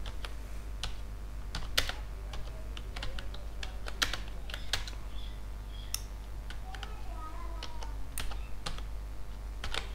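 Computer keyboard being typed on, irregular key clicks a few a second, over a steady low hum.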